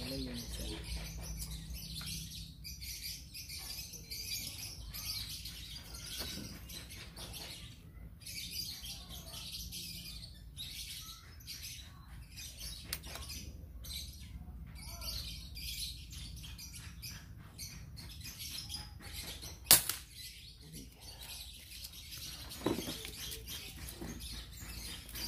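Small birds chirping steadily in the background; about twenty seconds in, a single sharp crack of a GCMAG air rifle firing a pellet, followed about three seconds later by a fainter click.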